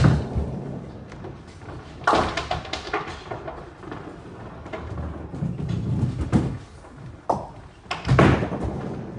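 Ninepin bowling balls hitting the lane, rolling, and clattering into pins. There are several loud knocks and clatters, with a low rolling rumble between them and another loud hit near the end.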